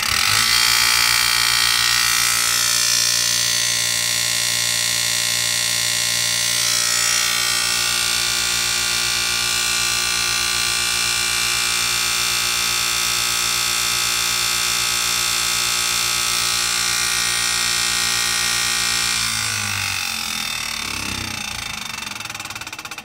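Bench grinder motor switched on, spinning up in the first couple of seconds, then running steadily at about 3,500 rpm with a hum and whine; its wheel is deliberately unbalanced by a small added weight. Near the end it is switched off and coasts down, the sound fading and dropping.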